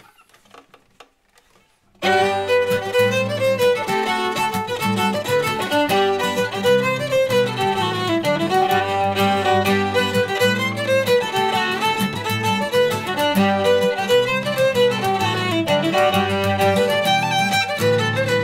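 Fiddle and acoustic guitar start a jig together about two seconds in, after a short quiet pause: a lively fiddle melody over guitar accompaniment.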